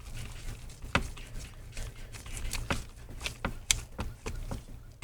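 Scattered light clicks and taps of a small screwdriver and screws being driven into a MacBook Pro's screen hinges, irregularly spaced, over a low steady hum.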